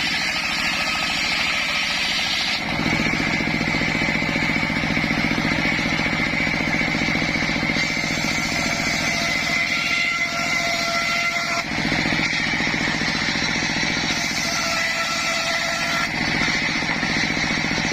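Engine-driven homemade circular saw rig running steadily, the motor's drone under a high blade whine. The sound shifts about two and a half seconds in and again near twelve seconds, as the load on the saw changes.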